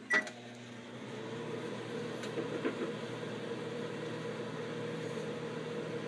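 Microwave oven started with a short beep from its start button, then running with a steady hum.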